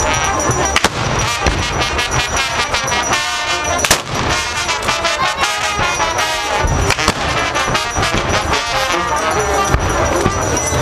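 Live brass band playing in a street procession, trumpets, trombones and tuba over a loud crowd, with sharp cracks through it and the loudest bang about four seconds in.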